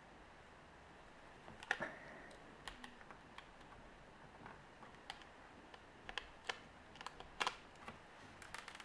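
Faint, irregular small clicks and taps of a precision screwdriver working the tiny screws inside an iPhone 3G, starting about a second and a half in.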